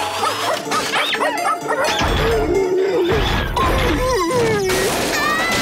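Cartoon soundtrack: action music with crash and thud sound effects, two heavy thuds about two and three seconds in, and a wavering electronic tone through the middle.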